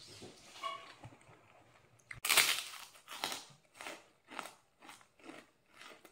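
A crunchy bite into raw lettuce wrapped around rice, about two seconds in. It is followed by close-up rhythmic chewing, about two chews a second.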